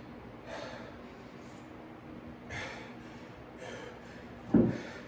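A man breathing hard through a set of push-ups, a forceful exhale every second or two, with a short low thump near the end.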